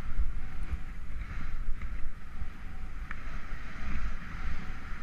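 Snowboard base and edges hissing steadily as they slide and carve over snow, with wind buffeting the microphone as a low rumble.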